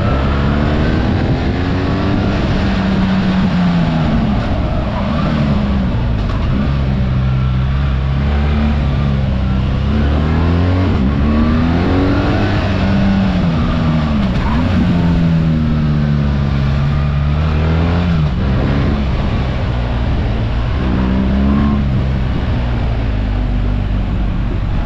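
BMW R 1300 GS boxer-twin engine heard from the rider's seat. The revs rise and fall again and again through a run of bends, over a steady rush of wind and road noise.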